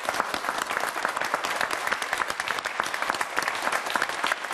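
Studio audience applauding: many people clapping steadily together.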